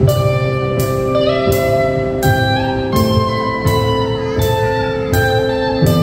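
Live rock band starting a song's intro: electric guitars playing held melody notes over bass and a steady drum beat, with a cymbal-like strike about every three-quarters of a second. The music comes in suddenly right at the start, with no singing yet.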